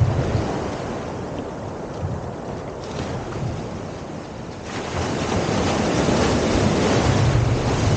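Wind buffeting the microphone over the sound of waves and rushing water, growing louder about five seconds in.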